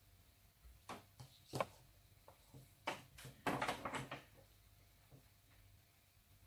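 A quick run of sharp clicks and knocks over about three seconds, most tightly bunched and loudest a little past the middle, over a faint steady hum.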